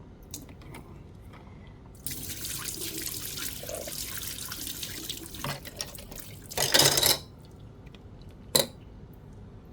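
Soaking water being poured out of a container of stove knobs into a kitchen sink: a steady splashing run of water starts about two seconds in, with a louder gush near the middle. A single sharp knock comes near the end.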